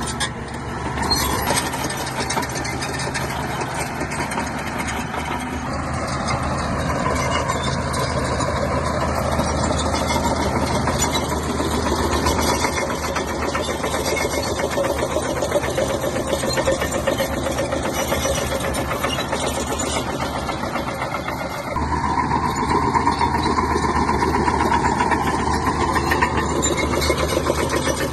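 Shantui bulldozer's diesel engine running under steady load. Its tone shifts about six seconds in and changes abruptly near three-quarters of the way through.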